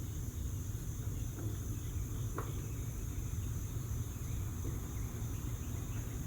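Insects chirping steadily over a steady low rumble, with one faint click about two and a half seconds in.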